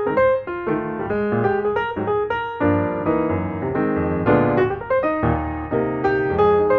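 Background piano music: a steady run of quick notes, with deeper bass notes joining partway through.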